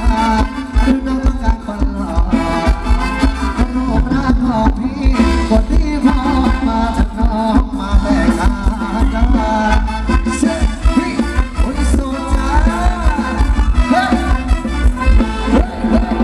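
Thai ramwong dance music played by a live band, with a steady heavy beat under a wavering melody.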